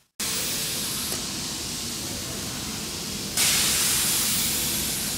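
Steady workshop hiss, which turns into a louder, sharper hiss of compressed air blowing about three and a half seconds in.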